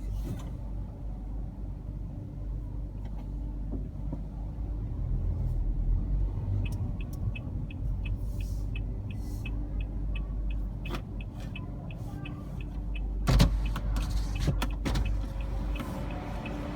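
Car running while it is parked, heard inside the cabin: a steady low rumble. From about halfway in there is a regular high ticking at about three a second. A few sharp knocks stand out, the loudest about 13 seconds in.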